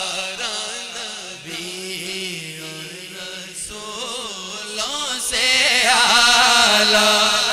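Male voices singing a naat, drawing out a long, wavering, ornamented note over a steady low tone. The singing grows louder and fuller about five seconds in.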